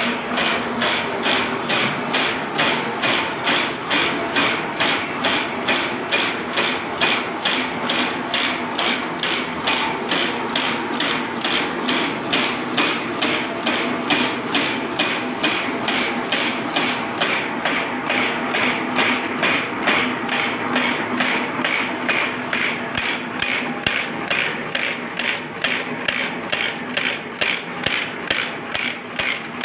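Accurate AWD047 automatic barbed wire making machine running, its mechanism clanking in a fast, even rhythm over a steady hum.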